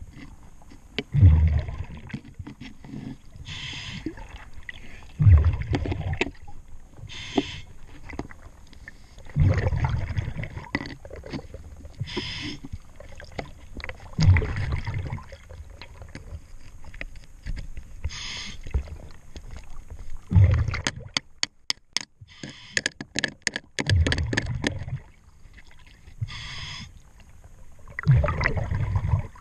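Diver breathing underwater through a regulator: a hiss on each breath in and rumbling bubbles on each breath out, roughly every four seconds. Metal clicks and scrapes come from a wrench working the bolts of a zinc anode on the hull, with a quick run of clicks about two-thirds of the way through.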